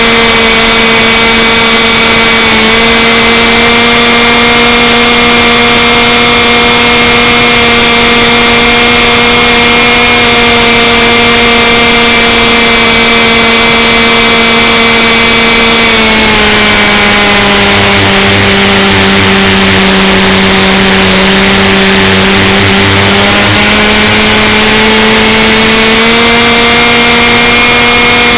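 A motor engine running loud at steady high revs. Its pitch drops about sixteen seconds in, holds lower for several seconds, then climbs back to the earlier speed near the end.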